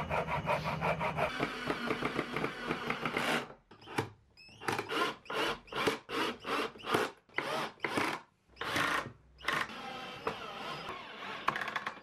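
Hand frame saw with a thin blade cutting a wooden slat in quick, even rasping strokes. About three and a half seconds in, these give way to a run of about a dozen separate, louder strokes with short gaps, then fainter scraping near the end.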